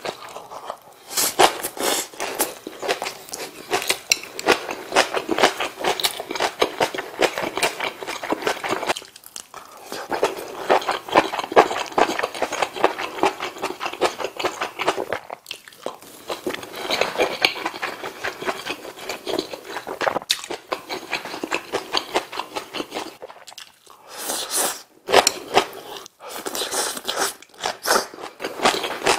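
Close-miked chewing and biting of rice wrapped in napa cabbage kimchi, then beef bulgogi: dense wet crunches and mouth clicks, broken by a few short pauses between mouthfuls.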